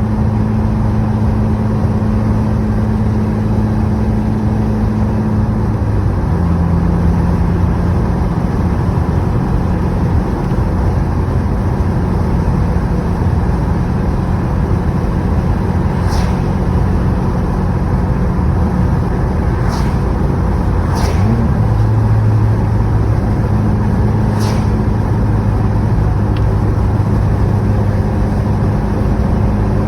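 2016 Subaru WRX's turbocharged 2.0-litre flat-four running steadily at a light cruise, heard from inside the car. The engine note drops to a lower pitch about six seconds in and rises again a little after twenty seconds, as with a gear or speed change. A few short clicks sound in the second half.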